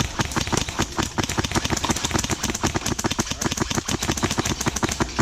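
Airsoft gun firing on full auto in a long string of rapid, evenly spaced shots, about ten a second.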